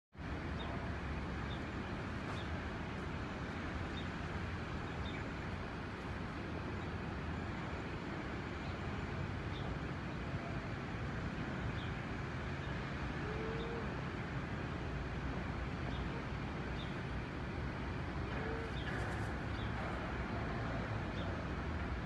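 Steady background noise of distant traffic, with faint short bird chirps now and then.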